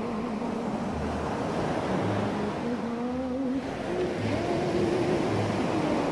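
Relaxing soundtrack: a steady wash of ocean surf under soft, slow music with a gentle low beat about once a second.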